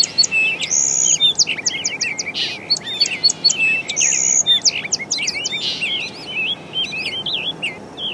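A chorus of songbirds singing and chirping, with many quick rising and falling whistles and trills overlapping, over a faint steady hiss.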